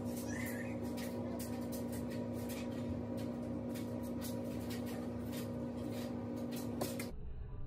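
Pie dough being rolled onto a wooden rolling pin and lifted off a silicone baking mat: repeated light knocks and rubbing, over a steady hum, with one sharper click near the end.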